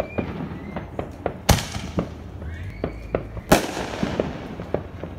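Fireworks: two loud bangs about two seconds apart, the second trailing off more slowly, over scattered smaller pops of fireworks going off around the neighbourhood.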